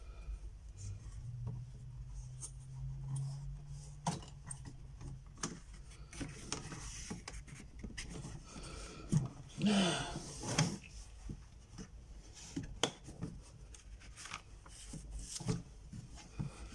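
Mat board and paper rubbing and sliding against a picture frame as they are handled and fitted in, with scattered light clicks and knocks; the handling is busiest about two-thirds of the way through.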